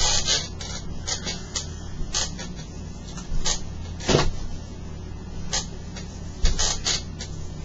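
Swivel chair creaking and clicking as it is spun round, short irregular creaks every half second to a second over a steady low hum.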